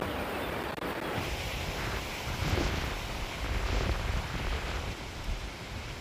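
Wind buffeting the microphone over a steady rush of water from a small waterfall.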